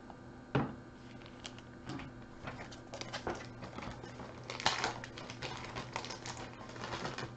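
Hard plastic one-touch magnetic card holders being handled: scattered light clicks and clacks, with a brief flurry of them about four and a half seconds in.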